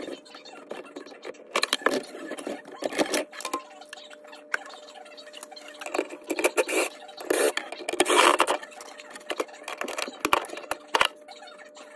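Clinks, knocks and scrapes of metal parts and hand tools on a garbage disposal's sink mounting ring, with a short run of a cordless drill/driver on the ring's screws about six seconds in and other short, louder bursts of handling noise.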